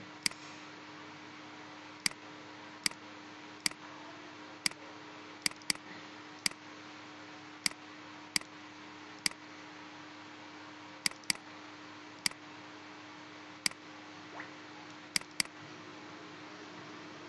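Computer mouse clicking: about seventeen sharp single clicks, mostly a second or so apart, with three quick double-clicks, as points of a polyline are placed in CAD software. A steady low electrical hum and hiss lie underneath.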